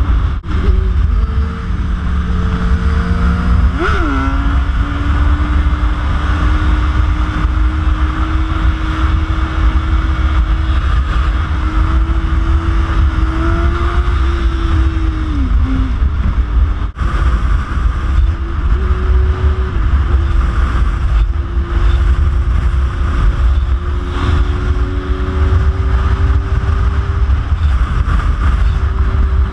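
Inline-four sport bike engine at a steady freeway cruise, buried in heavy wind noise on the camera microphone. The engine note jumps and drops briefly about four seconds in, dips around the middle, then climbs slowly.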